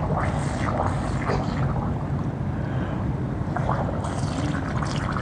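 Pool water splashing and lapping around swimmers, with short splashes over a steady low rumble of wind on the microphone.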